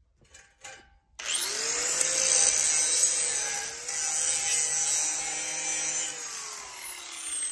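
Angle grinder with a grinding disc starts about a second in, spinning up to a steady high whine, and grinds the metal of a tractor back blade, cleaning it for welding. Its pitch falls near the end.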